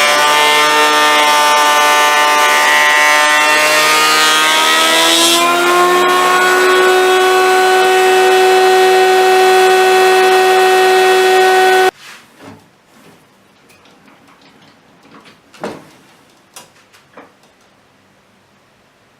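A power tool's motor running loud and steady, its pitch shifting a little about five seconds in, then cutting off abruptly about twelve seconds in. A few faint knocks and clicks follow.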